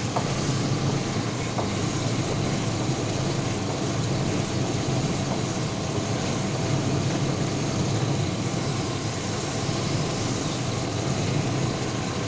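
Steady running noise from the Chevrolet S-10 Blazer, an even low rumble with no distinct pops standing out.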